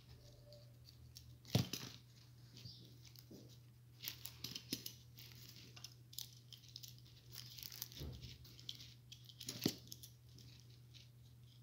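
Small plastic parts of an electrical plug being handled and fitted together: scattered clicks and light rustling, with a sharper click about one and a half seconds in and another near the end, over a steady low hum.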